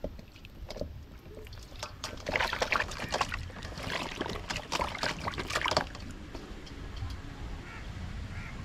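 Water sloshing and splashing, with a busy run of splashes from about two to six seconds in.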